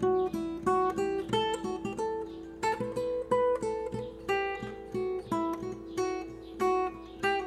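Background music on acoustic guitar: a steady run of plucked notes over held lower notes.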